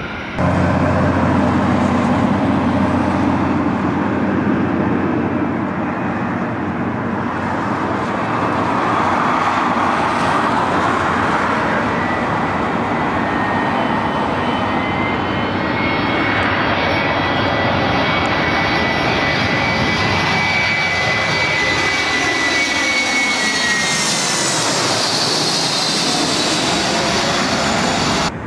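Jet airliner engines on landing approach: a loud, steady rush with a high whine that slides down in pitch near the end as the aircraft passes.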